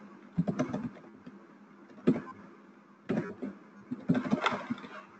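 Computer keyboard typing: four short bursts of key clicks about a second apart.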